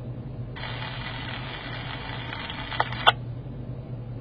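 Fire/EMS two-way radio speaker carrying an open channel with no voice: a hiss comes up about half a second in and cuts off after two sharp clicks around three seconds, as the transmission ends. A steady low hum runs underneath.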